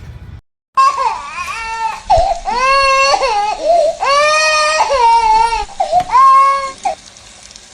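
A young child crying loudly, a run of long, high wails that rise and fall in pitch, starting about a second in and stopping near the end.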